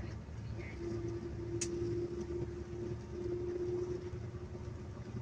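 Passenger bus driving on the highway, heard from inside the cab: a steady low rumble of engine and tyres with a steady hum over it. There is no rattling from the undercarriage, since the stabilizer bushing that caused it has been replaced. One sharp click comes about one and a half seconds in.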